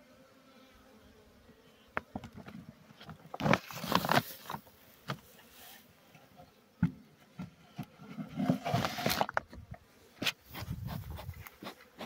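Honeybees humming steadily over an open hive, then loud crinkling of a plastic sheet laid over the frames, with sharp knocks of wood as the hive is covered.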